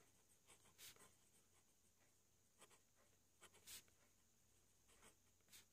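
Faint scratching of a ballpoint pen writing on paper: a handful of short strokes with pauses between them.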